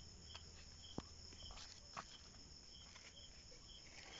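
Faint insect chirping: a steady high trill with short chirps repeating about twice a second, and a couple of faint clicks.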